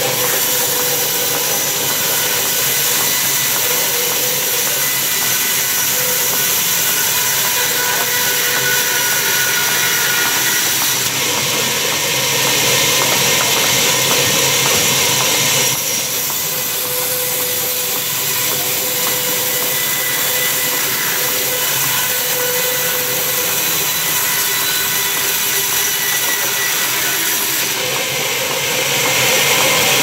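Sawmill band saw running and cutting lengthwise through a large log as it is pushed along the table by hand. It is a loud, steady whine with several held tones, and it gets louder for a few seconds around the middle and again near the end.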